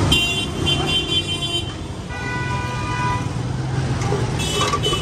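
Vehicle horns honking in street traffic. A high horn blast lasts about a second and a half, then a lower-pitched horn sounds for about a second, then a short high toot comes near the end, over a steady traffic rumble.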